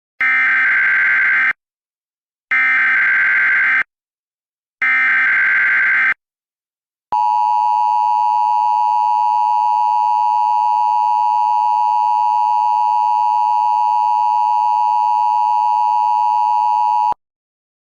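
Emergency Alert System broadcast tones: three short bursts of SAME digital header data, each about a second and a half with a second's gap between them, then the steady two-tone EAS attention signal held for about ten seconds before it cuts off.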